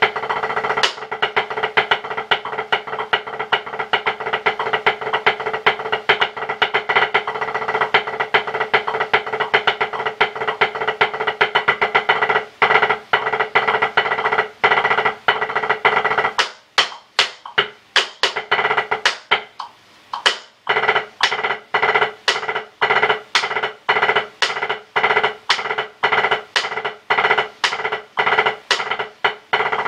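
Drumsticks on a drum practice pad playing an audition exercise: a fast, unbroken stream of strokes, then about halfway through the strokes thin out into evenly spaced single hits with short gaps between them.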